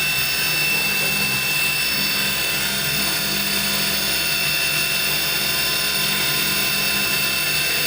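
CNC machine running a part program and cutting a part: a steady machine sound with a high, even whine over a low hum, unchanging throughout.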